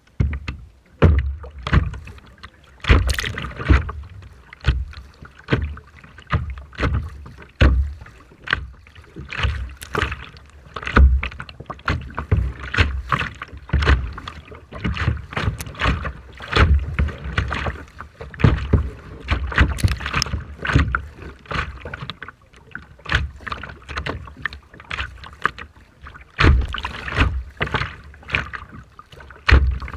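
Rough sea water splashing and slapping in quick, irregular bursts, each with a low thump.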